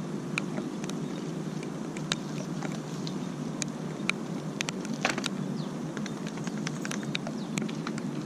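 Raindrops beginning to fall, making scattered sharp taps at an irregular pace over a steady low background noise.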